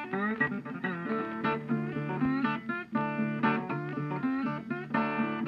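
Background music: a plucked guitar playing a melody, many of its notes bent upward in pitch.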